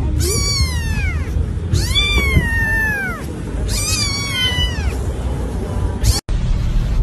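Tabby kitten meowing three times, high-pitched calls that each fall in pitch at the end, the middle one the longest, over a steady low rumble.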